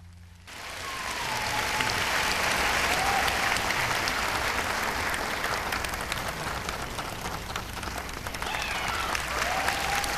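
Theatre audience applauding, breaking out about half a second in as the music stops, with a few voices calling out over the clapping.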